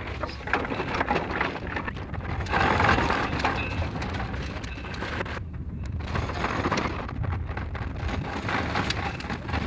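Crackling, hum-laden noise from a badly deteriorated 16 mm magnetic film soundtrack, with irregular clicks and a brief dropout a little past halfway.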